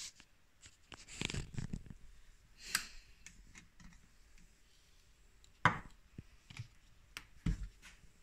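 Handling noises: scattered light clicks and rustles, with one sharp knock a little past halfway and a softer thump near the end, as a small glass of espresso is lifted off a metal drip tray and set down on a wooden table.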